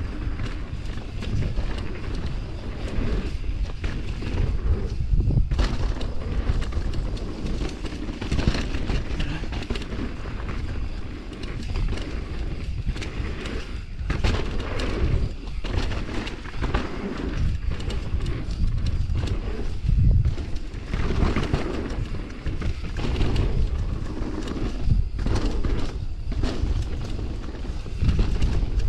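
Mountain bike descending a dirt trail at speed: a continuous low rumble of wind buffeting and tyres rolling on dirt, broken by frequent knocks and thumps as the bike rattles over bumps and lands small jumps.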